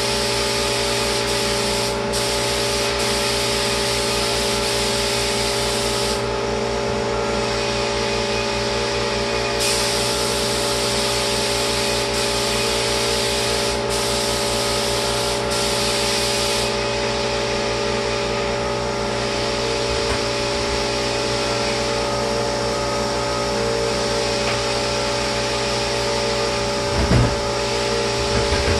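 Lacquer spray gun hissing in bursts over the steady hum of the sprayer's motor. The hiss runs for about six seconds, stops for a few, comes back for about seven, and is then fainter. A few knocks sound near the end.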